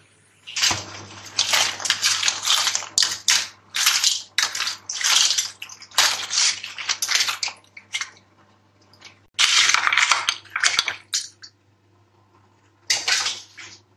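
Oyster shells and crabs clattering and scraping against a steel wok and a perforated metal skimmer as they are scooped out, in a run of rattling bursts broken by a couple of pauses. A faint low hum runs underneath.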